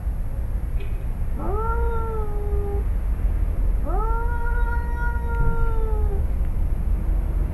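Two tomcats squaring off, one of them letting out long drawn-out yowls, the warning before a fight: two in all, each sliding up in pitch and then held, the second longer. A low steady rumble runs underneath.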